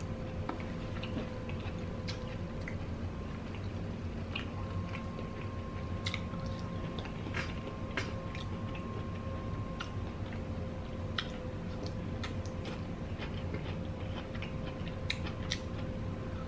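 Close-up chewing and wet mouth sounds of someone eating a seafood boil with their fingers: small smacks and clicks scattered throughout, over a faint steady hum.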